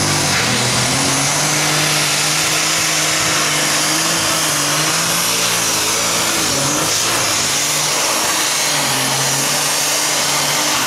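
Methanol-fuelled Super Stock pulling tractor engine running flat out under full load while dragging the weight sled, with a high steady whistle over it. The pitch holds nearly steady, wavering slightly as the tractor bogs and recovers.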